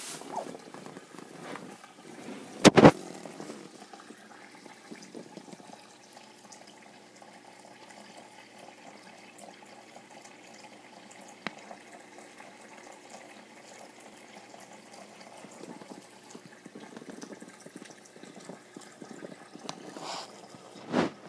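Water trickling steadily in a terrarium's water section. A loud bump about three seconds in and another near the end.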